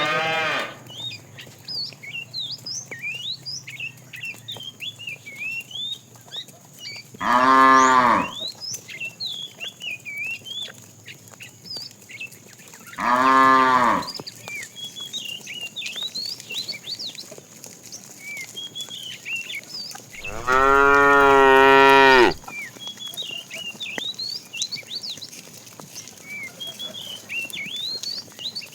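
Cows mooing: three separate long moos, the last and loudest held for about two seconds, with the end of another right at the start.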